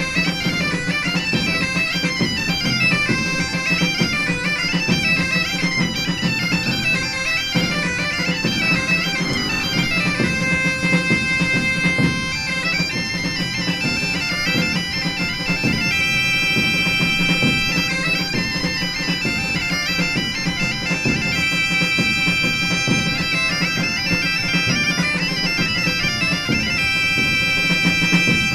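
Bagpipe music: a steady low drone under a melody of held and moving notes.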